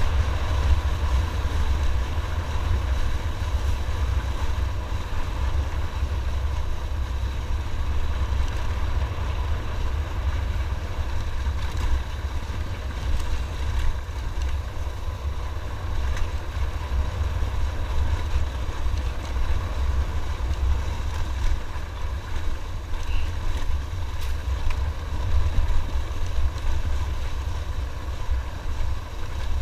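Motorcycle riding along a dirt trail: steady engine drone mixed with heavy wind buffeting on the camera microphone.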